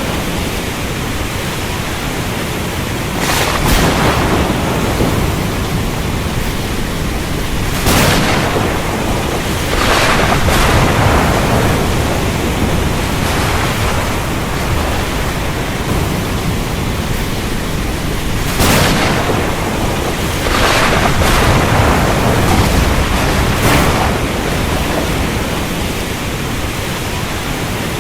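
Thunderstorm: steady rain with low thunder rumbling throughout and several sharp thunder cracks, one every few seconds.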